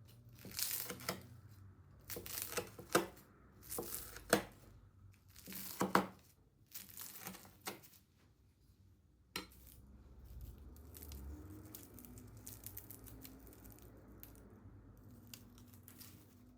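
Crisp, butter-layered baked spinach pastry crackling as it is torn apart, in about six short bursts over the first eight seconds, followed by a single click.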